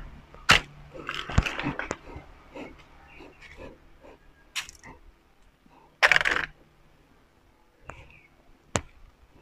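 Irregular footsteps, scuffs and knocks as someone walks up concrete steps with a handheld camera, with a short rustling scrape about six seconds in.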